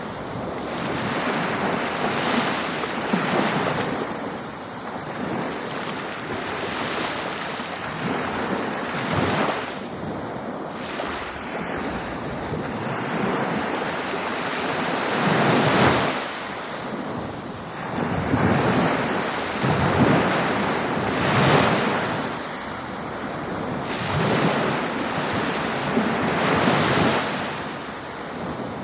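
Ocean surf: waves breaking and washing in, the rush of noise swelling and easing every few seconds.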